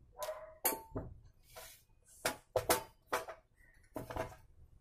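Sheet-metal top cover of a DVR case clanking as it is worked loose and slid off the chassis: a string of sharp metal knocks and clicks with brief ringing, several close together around the middle.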